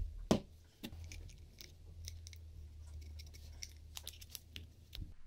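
Small, irregular clicks and light scrapes of a boxwood tool handle with a brass fitting being handled and turned in the fingers, over a steady low hum.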